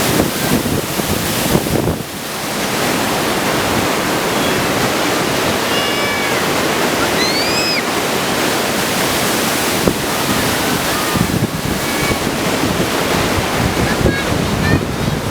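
Steady loud rushing of fast-flowing water, like a mountain creek or small cascade. A few short high-pitched calls rise above it, one near the middle gliding up and back down.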